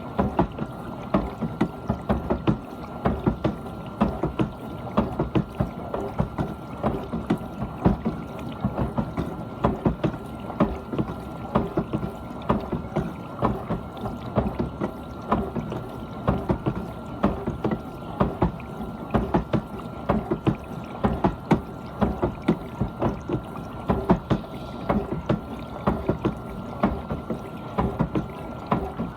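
GE dishwasher mid-cycle: water jets from the spray arms splashing and sloshing inside the tub in a constant irregular patter, over a steady thin whine from the pump.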